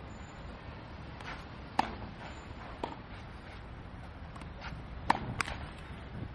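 Tennis ball being struck by a racket and bouncing on a clay court during a rally: a series of sharp pops, the loudest about two seconds in and again about five seconds in, with fainter ones between.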